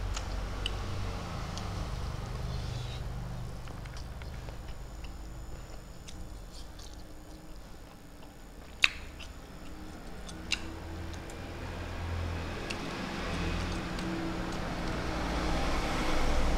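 A person eating fried fish and rice by hand: low, uneven chewing and mouth noises with faint ticks, and two sharper clicks a little past the middle.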